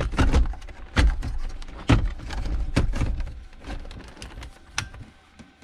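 Hands knocking and clicking plastic dashboard and centre-console parts of a car: a run of sharp clicks and knocks, closely spaced at first and sparser toward the end, over a low rumble in the first three seconds.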